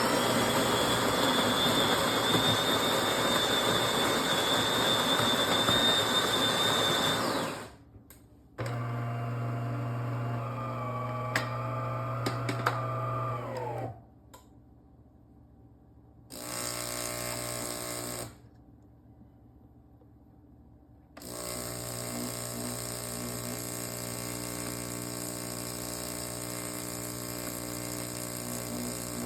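DeLonghi Magnifica S bean-to-cup espresso machine running a brew cycle. A motor whirs loudly with a steady high whine for about seven seconds. Then the water pump buzzes in short spells that stop and start, and from about two-thirds of the way in it settles into a long steady run.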